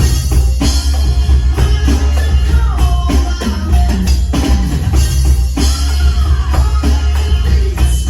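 Drum kit played along with a recorded pop song: a steady beat of kick and snare hits over a heavy bass line, with a voice or melody line gliding above.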